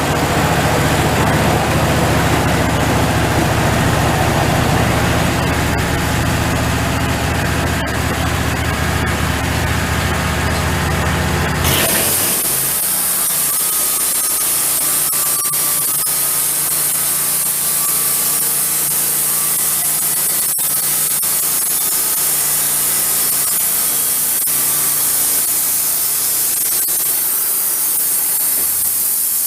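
Wood-Mizer portable band sawmill running while cutting a log into a beam, with a steady low engine hum under the saw noise. About twelve seconds in, the low hum drops away suddenly and a steady high hiss takes over.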